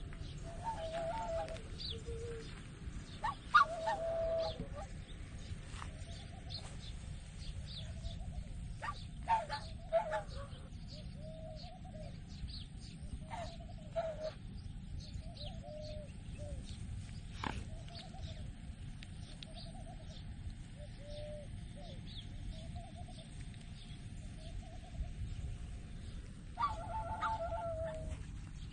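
Swans calling: short, soft, pitched calls in small groups every few seconds, with a few sharp clicks, over a steady low rumble.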